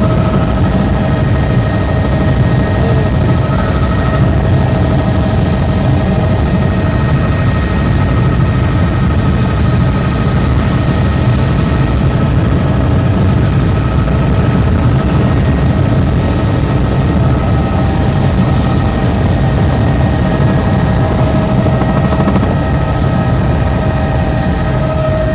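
Tour helicopter heard from on board in flight: a steady, loud drone of rotor and engine, with constant high turbine whine tones over a dense low rumble.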